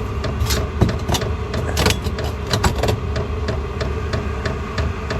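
A Vevor 8 kW diesel air heater running: a steady low hum with rapid, regular ticking, about five ticks a second, and a few louder clicks in the first two seconds.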